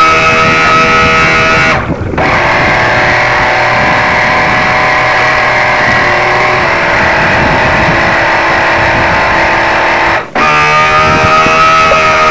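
Radio-controlled boat's motor running at speed close to the on-board camera, a steady buzzing whine of many held tones. It drops away briefly twice, about two seconds in and again about ten seconds in, as the throttle is eased, then picks up again at a slightly different pitch.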